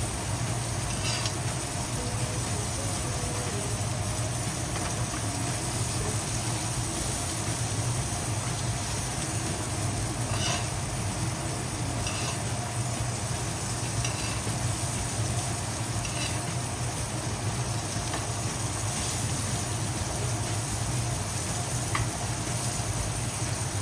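Filet mignon frying in hot fat in a stainless steel pan, a steady sizzle, while a metal spoon bastes it and clinks against the pan now and then.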